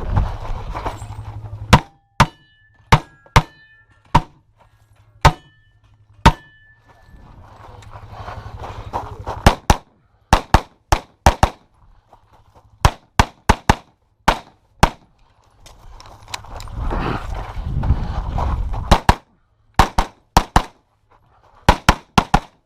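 Handgun shots fired in quick strings during a practical pistol stage, with pauses between the strings. Several early shots are followed by the brief ring of hit steel targets, and a rustling, shuffling noise rises between strings as the shooter moves.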